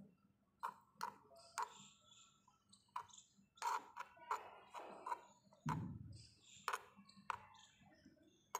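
Small metal spoon clicking and scraping against a miniature cooking pot while stirring: a string of sharp little taps at uneven intervals, with one duller thump about two-thirds of the way through.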